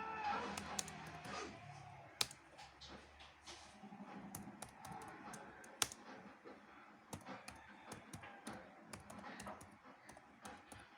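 Typing on a keyboard: a quick, irregular run of key clicks, with a few sharper, louder keystrokes standing out about two seconds in and near six seconds.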